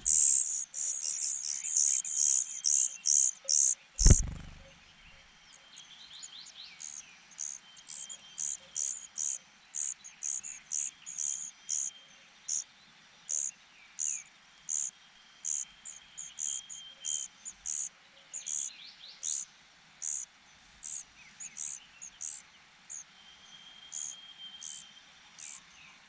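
Nestlings' high-pitched begging cheeps, fast and loud while a parent bird feeds them, then slower and fainter, about one to two a second, after it leaves. A single low thump about four seconds in.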